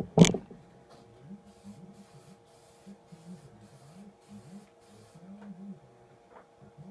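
Aerosol spray-paint can: one short loud burst of spray just after the start, then a run of faint, short hisses about two a second, as the paint goes on in quick taps.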